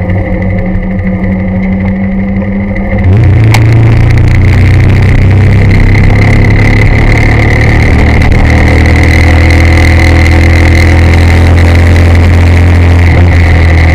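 Motorcycle engine running while riding, heard from the rider's own bike, with steady road and wind noise. About three seconds in it gets louder as the throttle opens, then holds a steady drone.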